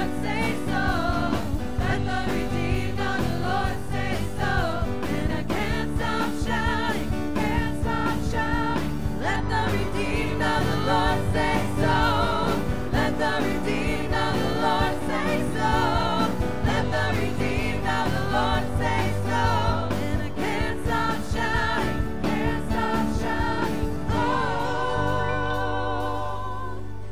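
A worship team singing a gospel praise song together into microphones over instrumental backing. Near the end the voices hold one long note with vibrato.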